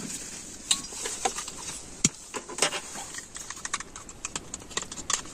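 Irregular light clicks and crackles, several a second, scattered unevenly.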